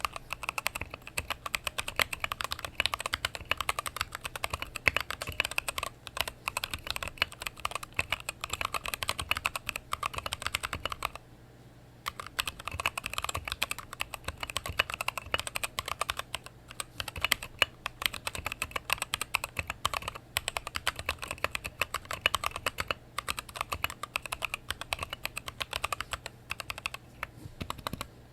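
Fast typing on a mechanical keyboard with tactile switches, a dense clatter of keystrokes as a sound test, with a pause of about a second roughly eleven seconds in.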